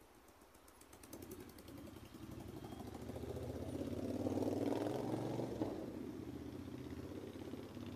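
A motor vehicle's engine running, starting about a second in and growing louder, with its loudest stretch around the middle.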